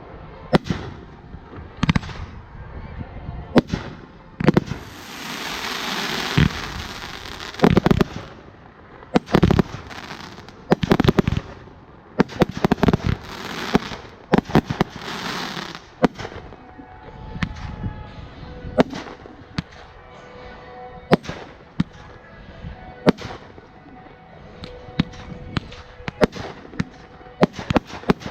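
Volcano fireworks (ground fountains) going off: stretches of loud hissing spray mixed with frequent sharp cracks and pops, thinning to scattered bangs in the second half.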